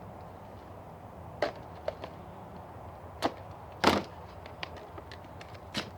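Handling of Heroclix booster packs and figures: a scatter of about five sharp clicks and knocks with smaller ticks between them, the loudest about four seconds in.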